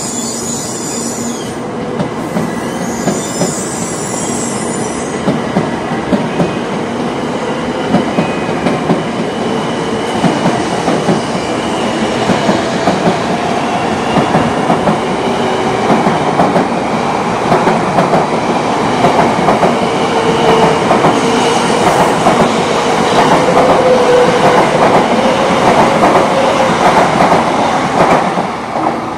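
Tokaido Shinkansen 700 series train running past, a continuous rumble of wheels on rail with short, regular clacks and faint squealing tones. It grows steadily louder and falls away shortly before the end.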